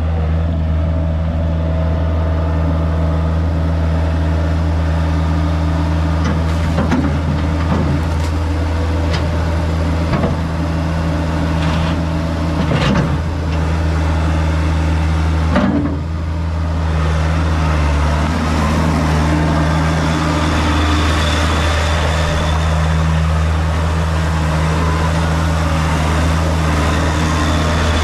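Hydra-Mac 2650D skid steer's engine running steadily, with several sharp clanks partway through. From about halfway the sound turns brighter and noisier with a faint high whine.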